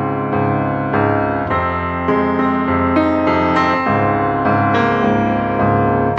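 Background music played on piano or electric piano, with a steady flow of notes.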